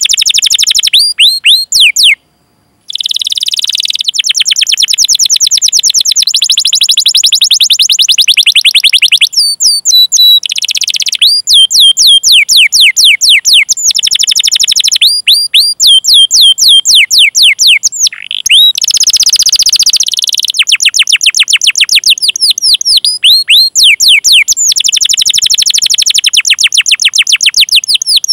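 Domestic canary singing loudly in long fast rolls of repeated 'cuit cuit' chirps, each note sliding down in pitch, many notes a second. The song breaks off briefly about two seconds in, then runs on in trilled rolls.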